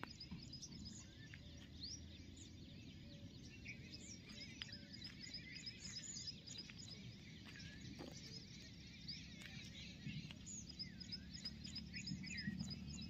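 Many birds chirping and twittering faintly, with short calls throughout and a rapid repeated chirp, over a low steady rumble.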